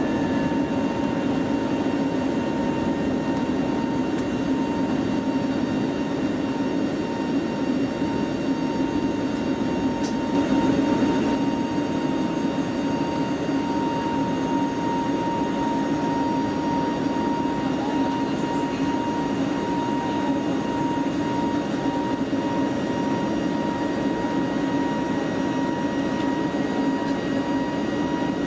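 Steady cabin noise of an Airbus A320neo: a constant jet-engine rumble heard from inside the cabin, with a fixed whine running over it.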